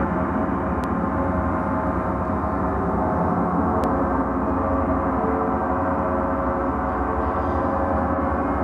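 A large gong played with sustained resonance: a dense, shimmering wash of many overlapping overtones held at an even level.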